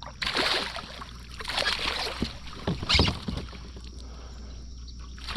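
Splashing and knocks against the kayak in three short bursts as a hooked smallmouth bass is landed.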